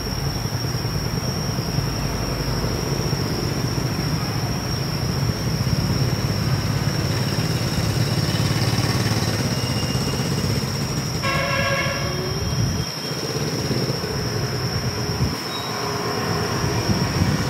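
Steady low rumble with a constant thin high whine, and a short horn toot about eleven seconds in.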